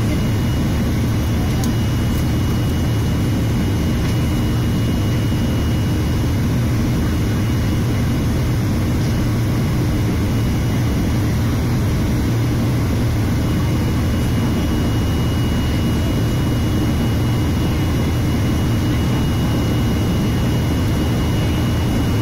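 Steady cabin noise of a jet airliner climbing out after takeoff: a deep engine drone and rushing air. A faint high whine drops away about halfway through and comes back.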